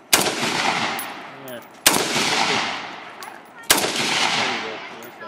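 Galil rifle in .223 fired three times, about two seconds apart, each shot followed by a long echo that dies away slowly.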